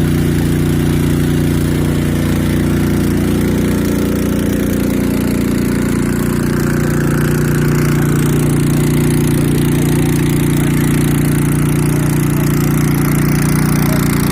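Small engine running steadily at a constant speed, getting slightly louder about eight seconds in.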